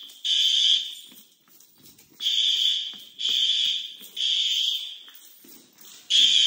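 Building fire alarm horns sounding the temporal-three evacuation pattern: groups of three half-second blasts, about one a second, with a pause of about one and a half seconds between groups.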